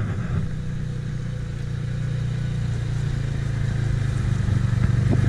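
An engine running steadily, its low hum growing gradually louder.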